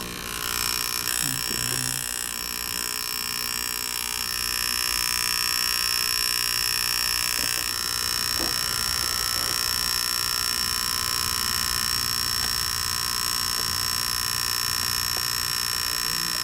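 Repaired electric air-mattress inflator pump running steadily and pumping air into the mattress, with a buzz and a steady high whine.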